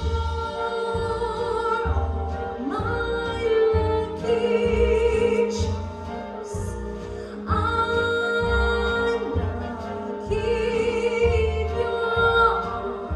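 A vocalist singing a song over an instrumental backing with a steady bass beat, holding several long notes.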